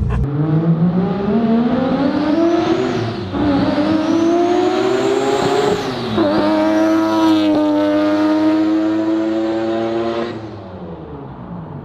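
Three-rotor rotary engine of a Mazda RX-7 accelerating hard through the gears: its pitch climbs, drops at an upshift about three seconds in and again about six seconds in, then holds steady before fading near the end. It is running with no boost, because an intake pipe has popped off.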